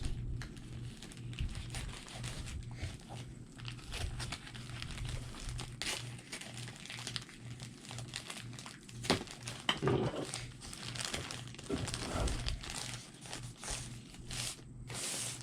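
A cardboard comic-book mailer and its inner packing being handled and opened, crinkling and rustling in irregular bursts, over a steady low hum.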